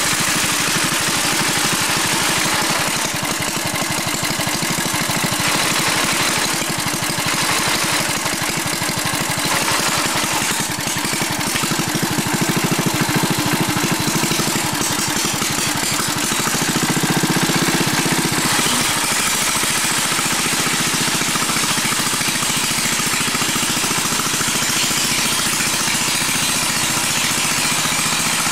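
BCS walk-behind sickle-bar mower running steadily while mowing grass on a slope. Its engine note swells briefly a little past halfway.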